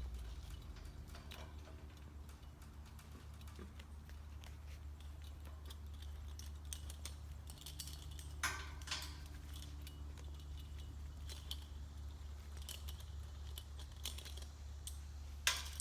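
Climbing gear and a bucket of metal tools clinking and jingling lightly as a climber goes up a steel tower, over a steady low hum.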